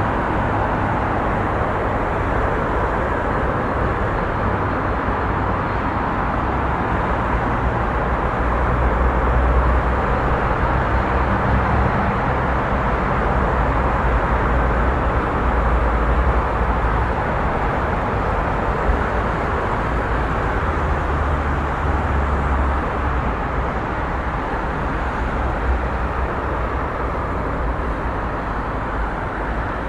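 Busy street ambience: a steady wash of passing traffic, with deep engine rumble that swells twice as heavier vehicles go by.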